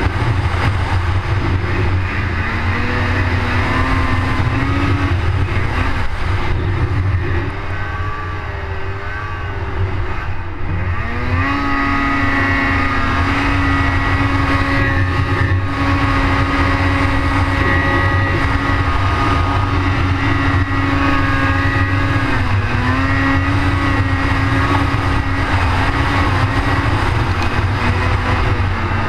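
Polaris 800 RMK snowmobile's two-stroke engine running hard under load while climbing a steep snow slope, heard from on board over a steady low rumble. Its pitch wavers at first, drops and then sweeps back up sharply about eleven seconds in, holds steady, and dips briefly about two-thirds of the way through.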